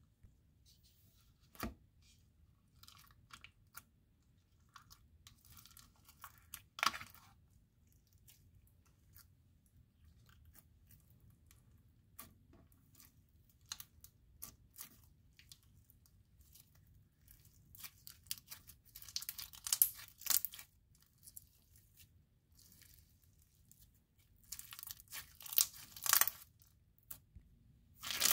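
Thick yellow slime with small beads mixed in, pressed, poked and stretched by hand: scattered soft clicks, pops and crunches, mostly faint, with louder runs of crackling about seven seconds in and again in the second half.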